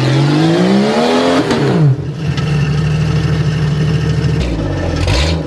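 Off-road 4x4's engine revving under load: the pitch climbs for about a second and a half, drops, then holds steady for a couple of seconds before easing off. The vehicle is straining against an obstacle while hung up on its passenger-side rocker.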